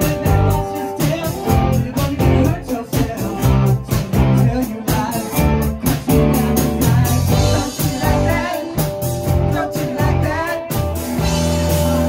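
Live band music, loud: a singer's vocal over guitar and drums.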